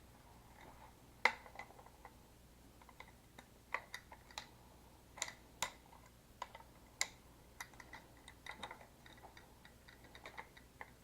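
Irregular clicks and light knocks of rifle parts and packaging being handled during an unboxing, with one sharper knock about a second in and a quicker run of small clicks in the second half.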